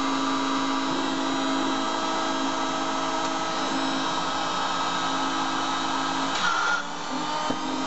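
Auto lens groover's small motor running with a steady whine while the groove position on a lens is being set. About six and a half seconds in the sound briefly changes, with a short higher tone and a dip before the steady running resumes.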